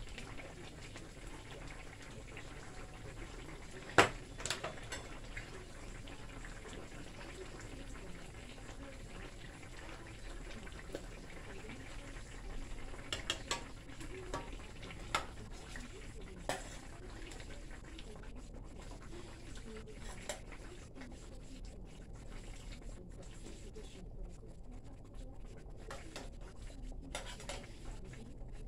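Brown stew fish simmering in a stainless steel pan, a low steady bubbling, with a few sharp clinks of a spoon against the metal pan. The loudest clink comes about four seconds in, and several more come around the middle.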